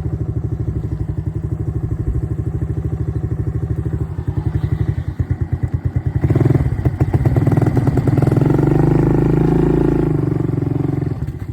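ATV engine running, then revved up about halfway through and held under load for several seconds before easing off near the end.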